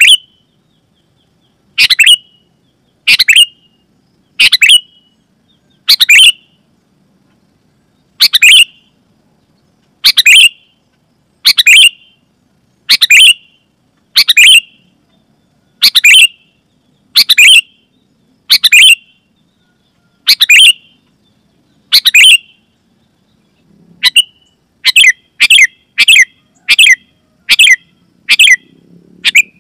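Sooty-headed bulbul giving loud, short, sharp calls over and over, one about every second and a half, then faster, about two a second, near the end.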